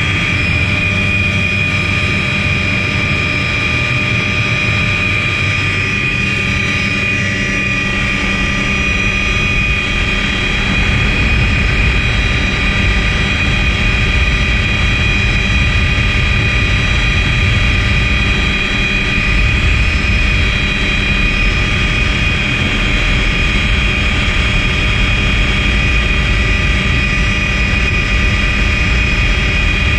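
Tour helicopter in flight, heard from on board: a steady engine whine over a low rotor rumble. The rumble grows a little louder about a third of the way in.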